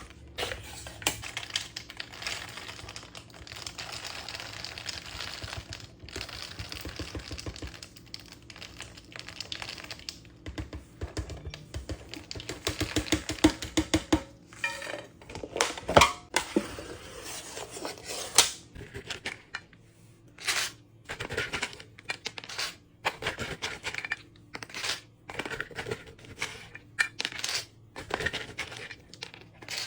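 A snack dispenser being worked, hard pieces rattling and clattering through its mechanism: a dense run of rattling for about the first half, then separate clicks and clatters.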